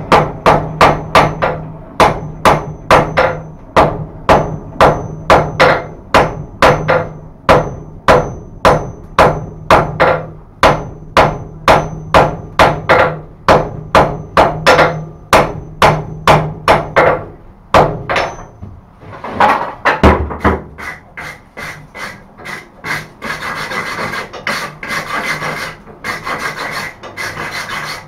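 Hand hammer striking a white-hot billet of welded rasp steel, wagon-tire steel and wrought iron on the anvil, about two and a half blows a second, each with a high ring from the anvil: forge-welding the layers at welding heat. About 18 seconds in, the steady blows give way to a looser run of lighter strikes with a denser scraping noise.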